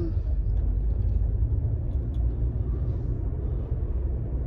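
Car running, a steady low rumble heard from inside the cabin.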